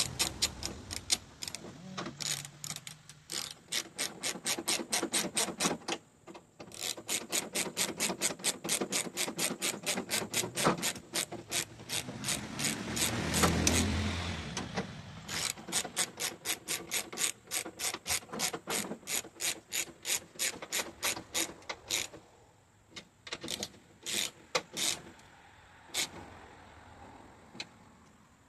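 Hand ratchet clicking in long, quick runs with short pauses between, as the bolts of a new tailgate latch are tightened down; the clicks thin out to a few scattered ones near the end.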